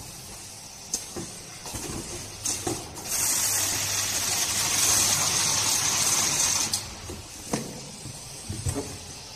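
Semi-automatic flap-folding carton sealer running for about four seconds, a steady loud hiss over a low hum that starts about three seconds in and cuts off suddenly. A few knocks of cartons being handled on the roller conveyor come before and after it.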